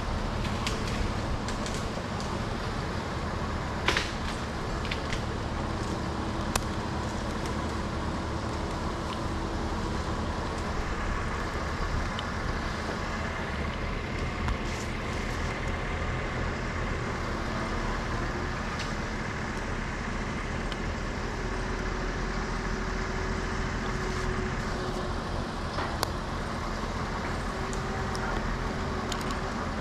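A large engine running steadily, like a truck or work machine at idle, with a few sharp knocks over it, the loudest about four seconds in.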